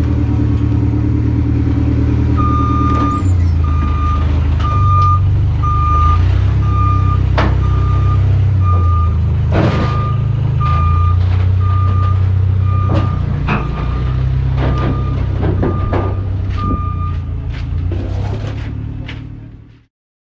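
Forklift reversing alarm beeping about once a second as it backs away with a load, over a steady engine drone and a few scattered clanks. The sound fades out just before the end.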